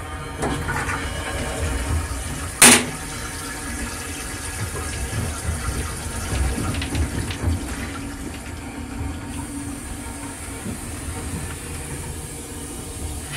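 Metro-North M3 railcar toilet flushing: water rushing into the bowl for several seconds, with one sharp, loud clack about two and a half seconds in, then fading away over a steady low rumble.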